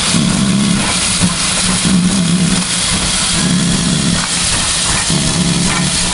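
Railway locomotive working at a station: a loud, steady hiss, with a low engine hum that swells and fades about every second and a half.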